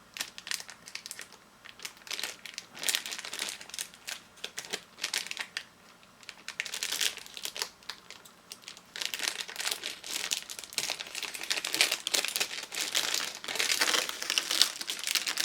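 Plastic packaging crinkling in irregular crackles as it is cut and pulled open, getting busier and louder about halfway through.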